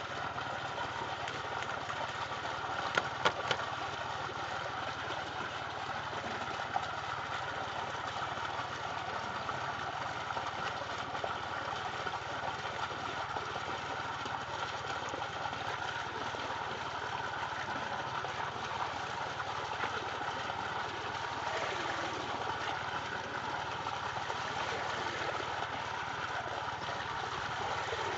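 A motor running steadily, with a few sharp clicks about three seconds in.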